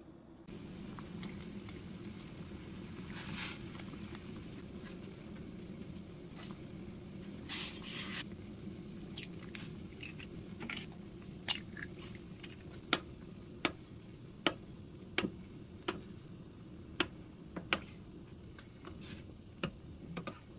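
Kitchen handling sounds: a dozen or so sharp knocks and clicks at irregular spacing through the second half, over a steady low hum.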